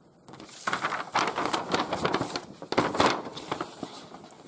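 Rustling and crackling with scattered clicks, as someone rummages by hand for a pointer.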